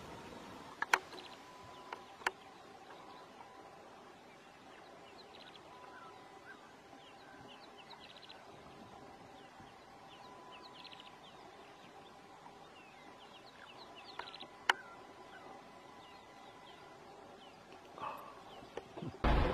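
Wild birds chirping and calling in short, scattered notes over a faint steady tone, with a few sharp clicks and a loud bump just before the end.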